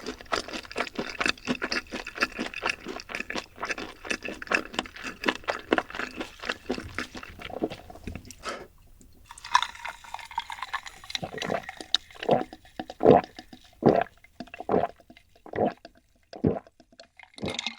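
Close-miked wet chewing and smacking of food in rapid clicks for about eight seconds. After a brief pause comes a liquid hiss like a drink being poured, then about eight loud swallowing gulps roughly a second apart.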